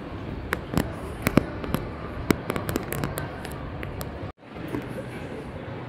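A cluster of irregular sharp clicks and crackles close to the microphone, typical of rustling and handling noise, over the steady background noise of a large mall hall. The sound cuts out completely for a moment about four seconds in.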